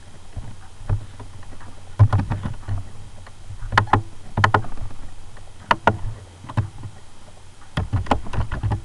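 Computer keyboard keys and mouse buttons clicking in short clusters with pauses between them, denser near the end, over a low steady hum.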